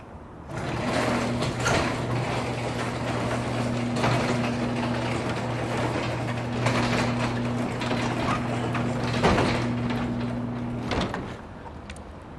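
Garage door opener motor running with a steady hum as it drives the sectional door down to closed, with a few knocks along the way. It starts about half a second in and stops about a second before the end.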